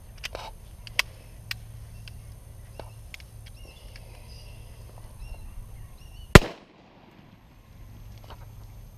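A single unsuppressed pistol shot of .45 ACP Hush 230-grain full metal jacket ammunition, sharp and loud, about six seconds in. A few light clicks come before it.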